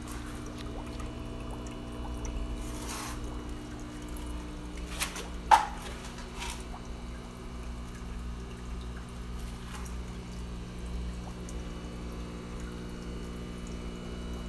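Aquarium sponge filter bubbling, with water trickling, over a steady low electrical hum. A couple of sharp clicks come about five seconds in.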